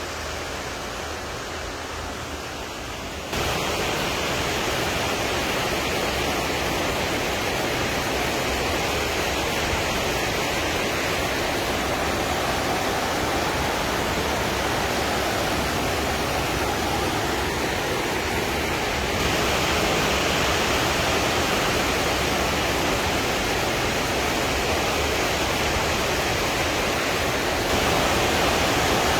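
A waterfall's water falling and splashing in a steady, even rush. It jumps abruptly louder about three seconds in, again around nineteen seconds in, and near the end.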